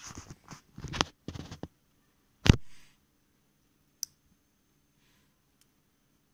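Handling noise and a heavy thump, then one sharp click about four seconds in as a finger presses the button on a two-channel Wi-Fi relay module and switches it.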